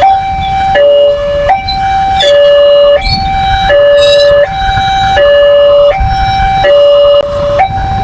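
Railway level-crossing warning alarm sounding, a loud electronic two-note tone switching back and forth between a higher and a lower note, each held for under a second, with a low rumble underneath.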